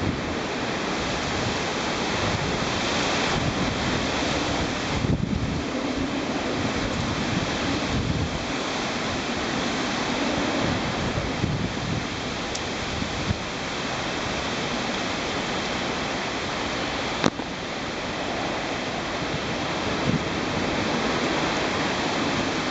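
Typhoon wind and rain: a steady rush of storm noise that swells and eases with the gusts, buffeting the microphone at times. A single sharp click comes about three-quarters of the way through.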